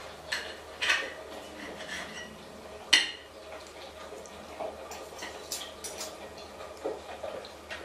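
Scattered light clinks and knocks over a low steady background hum, the sharpest about three seconds in, with a few higher clinks around five to six seconds.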